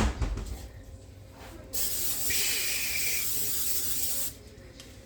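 Aerosol cooking spray hissing in one steady burst of about two and a half seconds, after a sharp knock at the start.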